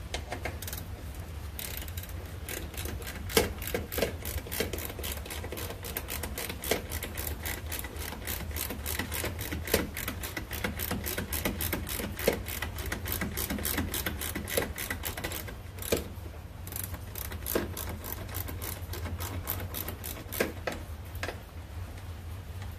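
Hand ratchet wrench clicking in quick runs as bolts are worked loose on a car door hinge, over a steady low hum.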